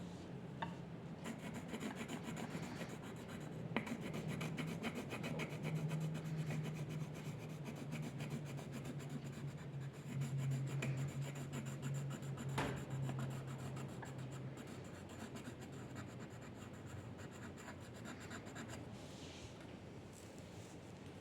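A drawing tool rubbing and scratching on paper in quick, continuous strokes, as in colouring or shading, with a steady low hum under it for much of the time and a couple of sharp ticks.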